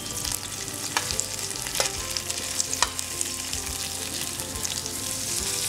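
Chopped onions and pepper sizzling gently in oil on low heat while a metal spoon stirs them, the spoon clicking and scraping against the metal pot, with three sharper clicks in the first three seconds.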